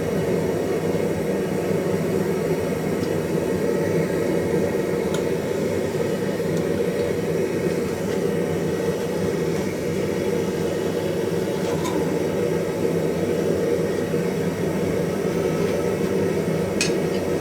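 A forge running steadily, its fire and air blast making an even rushing noise while the steel is brought up to welding heat. A few faint ticks sound through it, with a couple of sharper clicks near the end.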